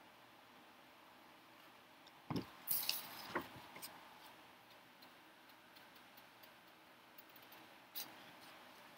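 Quiet room tone broken by a few scattered clicks and light knocks, the loudest cluster a little over two to about four seconds in, with one more click near the end.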